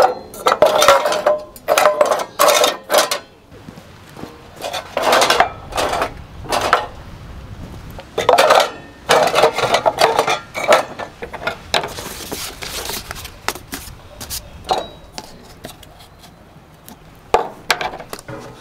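Pots, dishes and metal utensils clattering and scraping in short bursts of handling, busiest in the first half and sparser towards the end.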